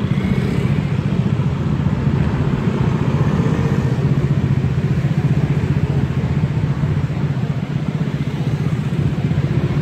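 Engine of a moving road vehicle running steadily, with wind and road noise.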